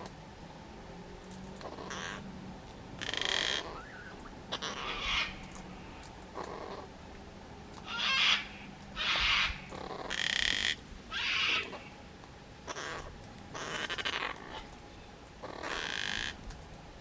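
Juvenile gang-gang cockatoo begging: a series of short, harsh, rasping calls about every second, kept up while it feeds itself.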